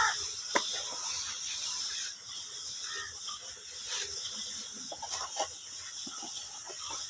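Wooden plastering float rubbing and scraping over wet plaster on a wall, a steady hissing scrape with short scratchy strokes. A sharp click about half a second in.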